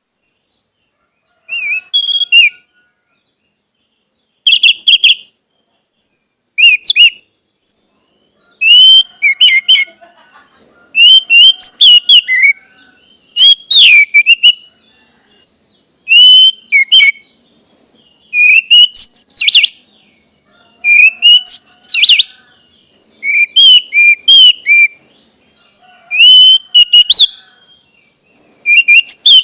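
Orange-headed thrush singing short, varied whistled phrases, spaced out with pauses at first and coming in quick succession from about eight seconds in. A steady high hiss runs beneath the song from that point on.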